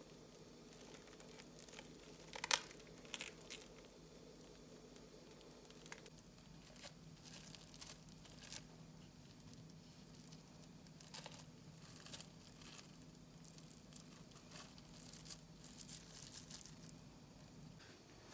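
Faint rustling and crinkling of something being handled, with a sharp click about two and a half seconds in, over a low steady hum.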